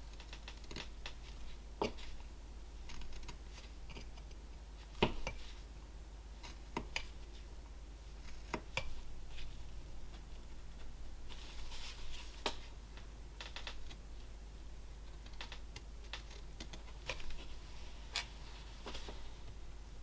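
Carving knife cutting basswood by hand: irregular short slicing and scraping strokes with a few sharper clicks, a second or two apart, with a couple of longer scraping stretches. A steady low hum runs underneath.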